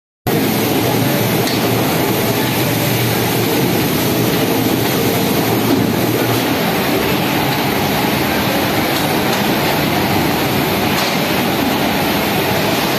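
Industrial drum washing machines for denim running on a wash floor: a loud, steady machine rumble and hiss that cuts in abruptly just after the start.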